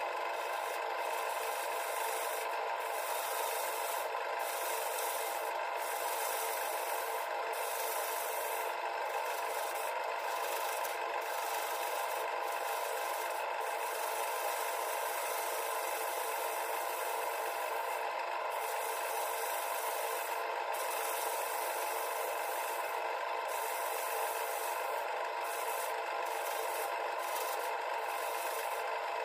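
Wood lathe running while a hand-held turning tool cuts the inside of a spinning black cherry bowl: a steady rasping scrape of steel on wood over the lathe's hum, with brief breaks every second or two as the tool eases off the cut.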